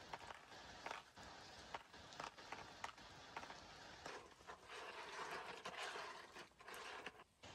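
Faint, irregular clicks and clatter of shellfish shells knocking together in a plastic bowl as they are handled, with a soft rustling noise about four to six and a half seconds in.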